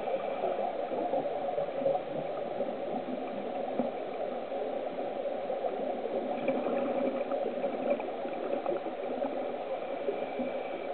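Steady underwater bubbling and gurgling from scuba divers' exhaled air bubbles, with a faint thin tone that comes and goes.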